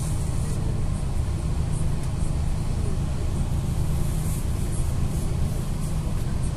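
Bus engine idling, a steady low hum heard from inside the stationary bus's cabin.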